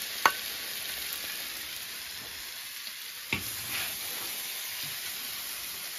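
Food sizzling in a large iron wok with no liquid left, while a long metal spatula scoops the stir-fried potatoes and peppers out. There is a sharp metal clink about a quarter second in and another a little after three seconds.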